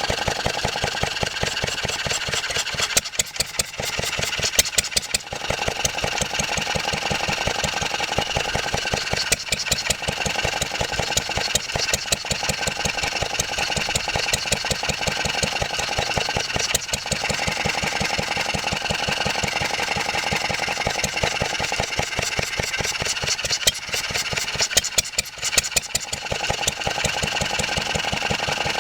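1954 Wolseley WD8 stationary engine running steadily, with a rapid, even beat of firing strokes and a clatter from the trolley it is loosely bolted to.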